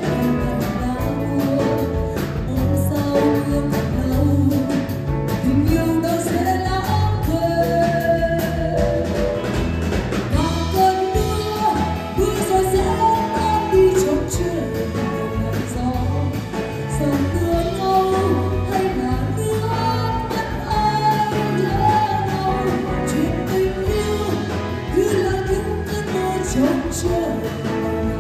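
Live band playing a pop song: a woman sings lead into a microphone over electric guitar, bass guitar and a drum kit keeping a steady beat.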